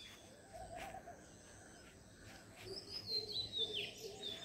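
Birds chirping, with a quick run of high chirps falling in pitch in the second half, over faint outdoor background noise.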